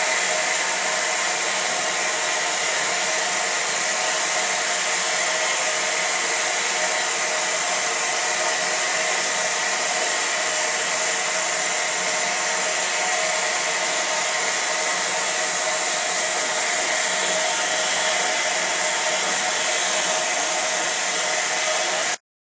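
Water rushing steadily from a water crane's hose into a steam locomotive's tender tank while it takes on water; the sound stops abruptly near the end.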